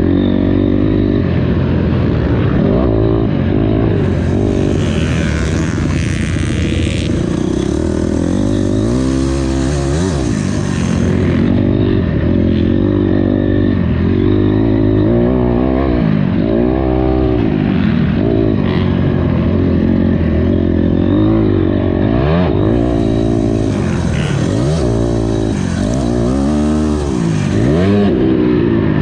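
Honda CRF250R's single-cylinder four-stroke engine being ridden hard, revving up and falling back again and again, its pitch rising and dropping every couple of seconds.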